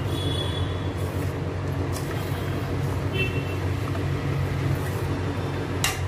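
A steady low hum, with soft stirring of churned cream and water in a steel pot, and a single short clink near the end.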